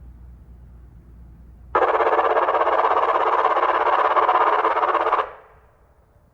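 Whelen WPS-2750 electronic siren's speakers sounding a steady electronic tone for about three and a half seconds, starting suddenly after a low hum and then dying away with an echo.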